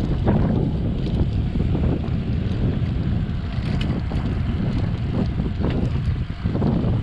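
Wind buffeting a chest-mounted action camera's microphone on a moving bicycle: a steady low rumble with uneven gusts.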